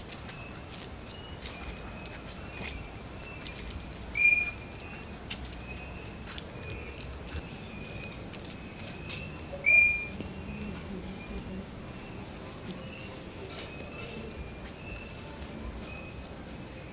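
Crickets chirring steadily in a high, fast trill, with a lower short chirp repeating about every half second to second; two of the lower chirps, about four and ten seconds in, are much louder.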